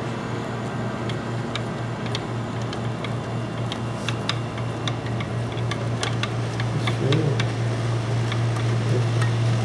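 Irregular light clicks and taps of hands handling and fitting CPU cooler mounting hardware inside a computer case, over a steady low hum.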